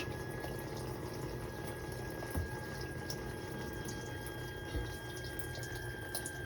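Whirlpool dishwasher filling, with water running in steadily and a constant high hum from its water inlet solenoid valve. The owner takes the hum for the sign of a failing inlet valve that lets in only a weak flow.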